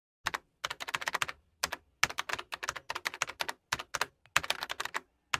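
Typing on a laptop keyboard: quick runs of keystroke clicks broken by short pauses.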